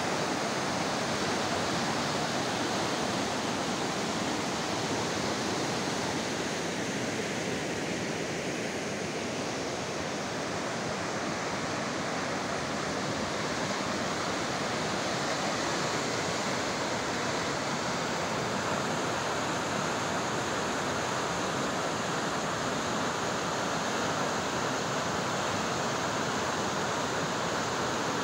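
Fast mountain river rushing over boulders in whitewater rapids: a steady, unbroken roar of water.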